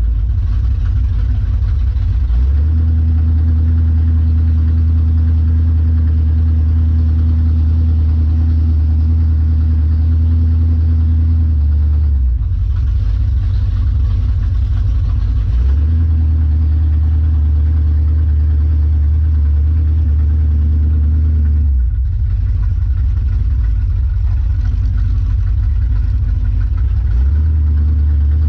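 Dodge Dart Sport's engine running as the car rolls along at low speed, heard up close from the hood: a loud, deep, steady drone that turns rougher and lumpier three times for a few seconds each.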